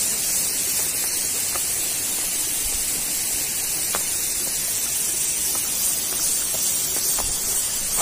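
Steady rush of falling water from a waterfall: an even, unbroken hiss.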